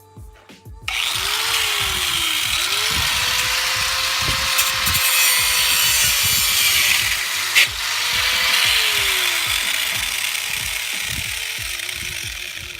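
Electric angle grinder working on a rusty steel truck frame: a harsh grinding noise starts about a second in, with the motor's whine dropping and picking back up several times as the wheel bites and binds, and one sharp clack partway through.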